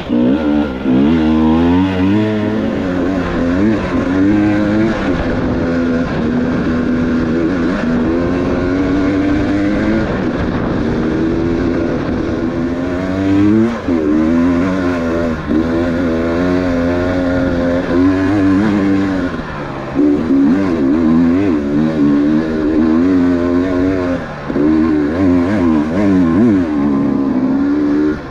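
Enduro dirt bike engine running under load on a tight forest trail, the revs constantly rising and falling as the throttle is opened and eased, with a couple of brief drops in revs along the way.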